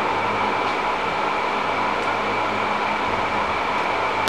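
Steady mechanical whir and hum of workshop machinery, with a low electrical-sounding drone under it and a couple of faint ticks.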